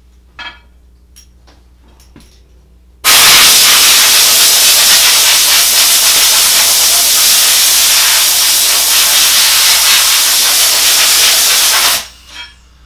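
Compressed-air blow gun giving one loud, steady hissing blast of about nine seconds, blowing chips off a freshly engraved aluminum plate; it starts and stops abruptly. A few faint knocks come before it.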